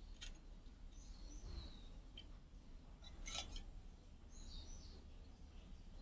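Faint handling sounds as a metal antenna cap is pressed onto a microwave oven magnetron, with one short scraping click about halfway through. Faint bird chirps sound twice in the background.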